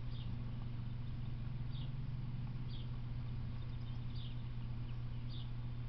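A bird giving short, high chirps, about one every second or so, over a steady low hum.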